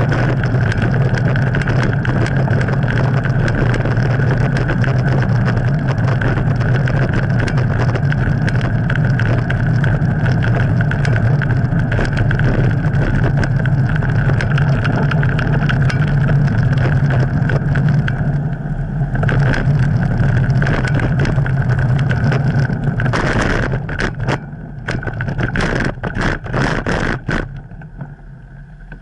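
Wind rushing over the microphone of a camera mounted on a moving bicycle, mixed with road noise. It stays steady, then breaks into uneven gusts and fades over the last few seconds as the bike slows to a stop.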